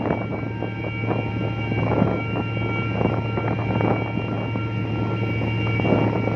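Ship diesel engines running with a steady low drone, a thin steady whine above it.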